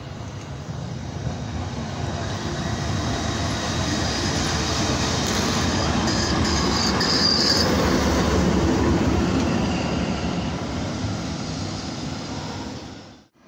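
Class 295 diesel shunting locomotive passing close with its engine running and wheels rolling over the track, growing louder to a peak and then fading. A brief high wheel squeal comes in the middle. The sound cuts off abruptly near the end.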